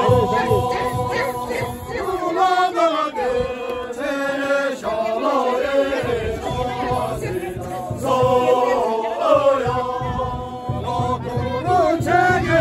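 A group of dancers singing together without instruments, men's voices leading, in long held and bending chanted phrases of a traditional circle-dance song.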